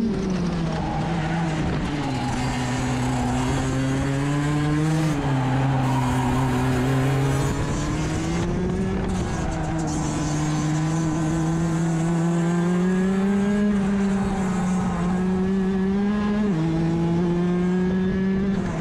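Rotax DD2 kart's two-stroke engine racing, heard from on board: its pitch drops at the start, climbs slowly along the straights, and steps abruptly up or down a few times.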